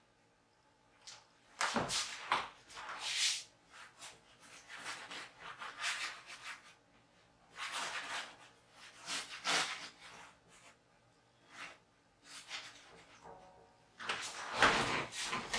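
Paintbrush dragging acrylic paint across a canvas in a series of short scrubbing strokes, a stroke every second or two, with a longer, louder run of strokes near the end.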